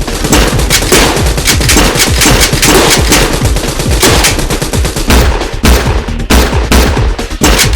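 Rapid automatic-gunfire sound effects standing in for Nerf blasters firing, shot after shot in dense bursts.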